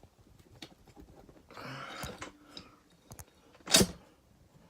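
Small metallic clicks and scrapes as the cylinder of a Honda 250SX engine is worked up off its studs, with one sharp knock a little before the end.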